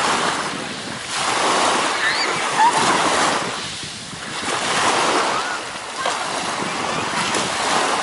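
Small waves breaking and washing up a sandy beach, the surf swelling and easing every few seconds.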